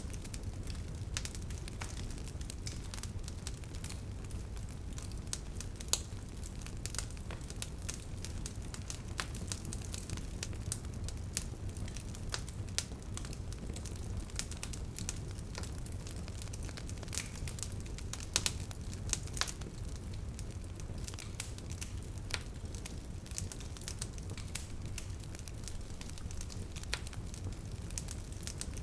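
Wood fire burning with steady, irregular crackling and sharp pops over a low, even rumble, with a few louder snaps about six seconds in and again around eighteen to nineteen seconds in.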